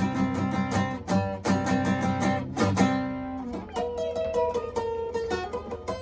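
Guitars strumming chords over a bass line in an instrumental break of a punk-pop song. About three seconds in, the strumming and bass stop and a single guitar picks a melody line.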